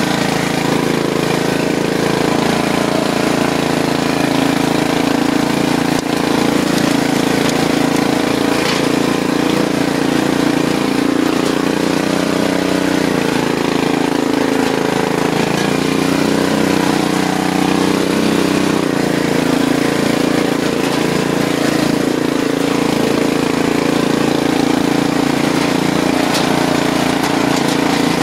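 Riding lawn mower's engine running steadily. About halfway through, its pitch sags and recovers a couple of times as it labours under load, driving through mud.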